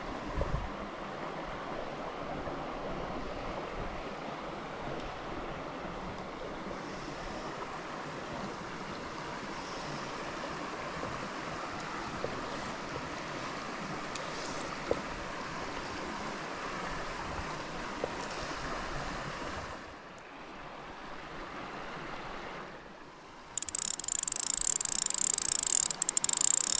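River water running steadily. About three-quarters of the way through it drops away, and a much louder high-pitched hiss starts abruptly and carries on.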